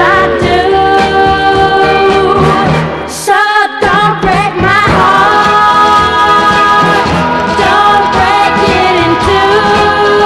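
1960s pop recording: a female lead vocal over a full band. About three seconds in, the low end drops away for a moment before the full arrangement comes back in.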